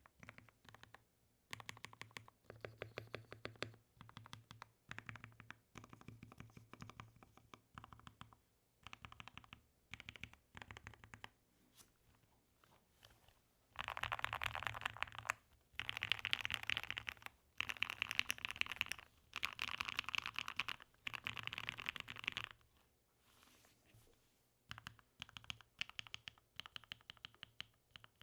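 Typing on a Mode 80 mechanical keyboard with lubed and filmed Gateron Black Ink v2 linear switches, an FR4 plate and PBT keycaps. The keystrokes come in short bursts with pauses between them, and a louder stretch of fast, dense typing runs through the middle.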